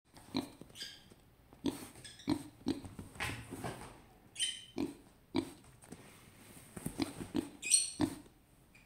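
Pigs grunting in short, irregular bursts, broken three times by brief high-pitched squeals: the noise of pigs scuffling with each other.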